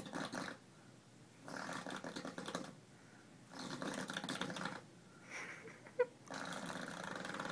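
A person blowing raspberries, making fart noises with the lips, in a series of about five buzzing bursts, each up to a second or so long, with a short sharp click about six seconds in.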